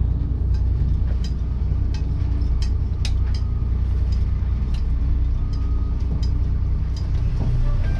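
Diesel engine of a converted school bus running at low speed, heard from inside the cab as a steady low drone, with irregular sharp clicks and rattles over it as the bus rolls slowly over a rough dirt pull-off.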